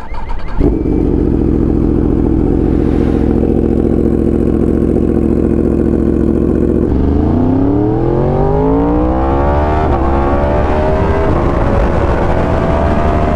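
2020 Yamaha R1's crossplane inline-four through an SC Project exhaust. After a short clatter at the start it idles steadily, then about seven seconds in the revs rise as the bike pulls away, break briefly near ten seconds, and keep climbing more slowly.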